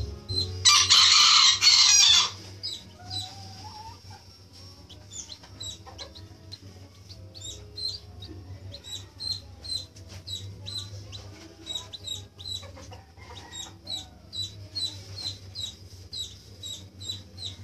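Serama chickens in the coop: a short, loud rooster crow about a second in, then high, quick peeping repeated over and over, with occasional lower clucks.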